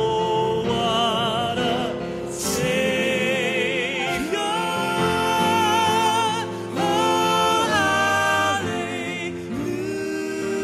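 Male gospel vocal group singing in close harmony, with long held notes and vibrato.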